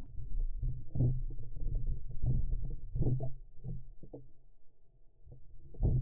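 Muffled, irregular low thumps and knocks with water sloshing, picked up through a waterproof action-camera housing underwater as a spearfisher handles his speargun and a speared Atlantic bonito.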